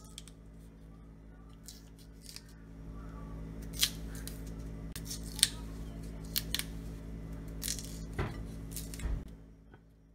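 A small kitchen knife slitting the thick, bark-like skin of a cassava root and prying the peel off the white flesh: a series of irregular, crisp cuts and scrapes, with a steady low hum underneath.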